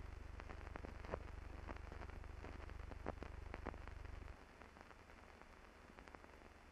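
Faint crackle and hiss of an old film soundtrack: scattered clicks over a low hum that drops away abruptly about four seconds in.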